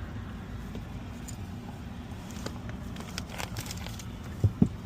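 Light clicks and rattles of things being handled and connected, then two short dull thumps near the end, over a steady low rumble.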